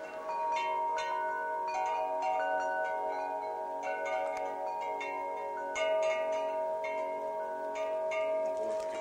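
Hanging metal tube wind chimes ringing, struck in clusters every second or two, their long tones overlapping.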